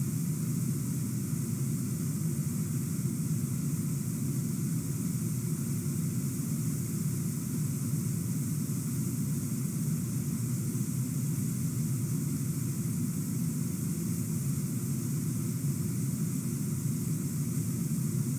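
Steady, unbroken rushing noise with a low rumble and a fainter hiss above it, with no separate sounds standing out.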